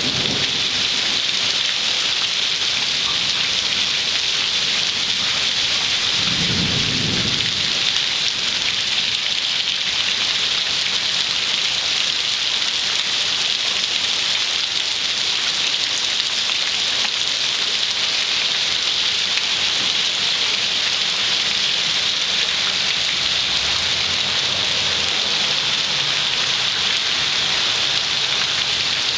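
Heavy downpour: a steady, loud hiss of rain falling on a waterlogged street and pavement. A brief low rumble comes about six seconds in.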